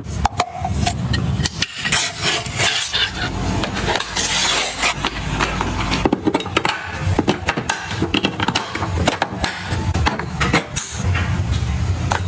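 Small items being handled and set down one after another: a dense run of sharp clicks and taps over rubbing and scraping.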